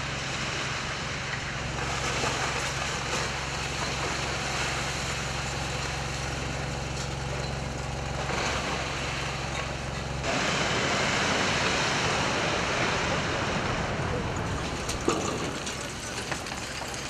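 A heavy machine's engine running steadily at a demolition site, with a wash of noise over it. About ten seconds in the engine hum stops and a louder, even rushing noise takes over, with one sharp knock a few seconds later.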